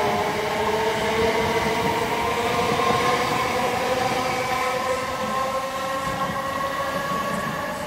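A c2c Class 357 Electrostar electric train pulling out and speeding up. Its traction motors whine in several tones that rise slowly in pitch over the wheel and rail rumble, and the sound fades as the train draws away.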